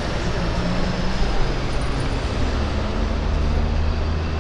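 A steady low mechanical drone under an even hiss.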